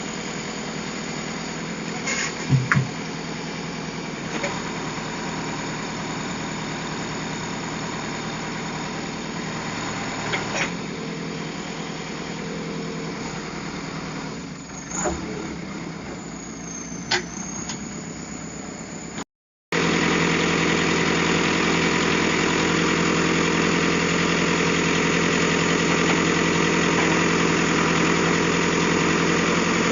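Heavy diesel engine running steadily, with a few sharp knocks in the first part. After a brief dropout about two-thirds through, it runs steadily and louder.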